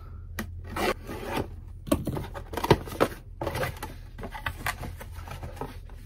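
A cardboard shipping box being opened by hand: packing tape pulled off and cardboard flaps rubbing and scraping, with a few sharper knocks of the box being handled about two to three seconds in.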